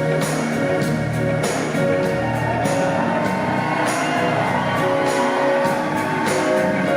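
Live band music in a concert hall with a steady drum beat and held instrumental notes.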